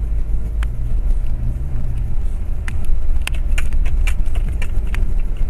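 Car's road and engine noise heard inside the cabin while driving: a steady low rumble. A series of sharp clicks comes mostly in the second half.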